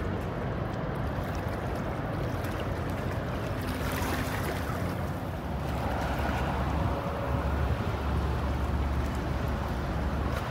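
Outdoor waterfront ambience dominated by wind buffeting the microphone: a steady low rumble that grows a little stronger after about six seconds, with a brief gust of hiss about four seconds in.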